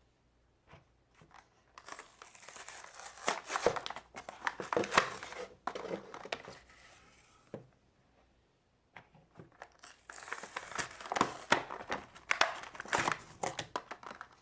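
Crinkling and crackling of toy packaging being handled, in two spells of a few seconds each with sharp clicks.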